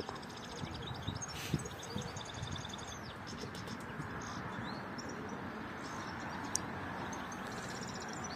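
Small wild birds chirping and twittering over a steady background rush of outdoor noise, with one short click about two-thirds of the way through.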